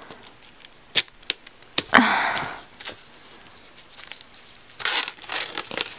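Plastic shrink-wrap on an album box being poked with a pen and picked at: a few sharp clicks in the first two seconds, then crinkling and tearing of the plastic about five seconds in. A short breath comes about two seconds in.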